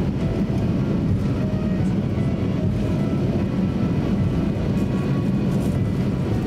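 Cabin noise of a Boeing 737-800 taxiing: a steady low rumble from its CFM56-7B engines at taxi power and the airframe rolling along the taxiway.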